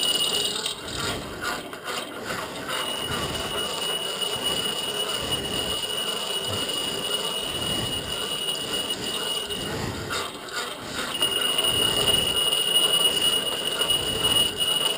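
Hand-cranked grinder with a 5-inch grinding wheel sharpening a steel cold chisel: a steady high-pitched grinding squeal over a rough scraping noise. It breaks off briefly twice, near the start and again about ten seconds in.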